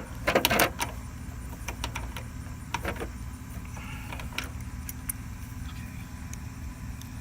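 Small metallic clicks and rattles of hand tools, bolts and wiring being handled while the starter relay is refitted on a riding mower, a cluster in the first second and scattered ones after, over a steady low rumble.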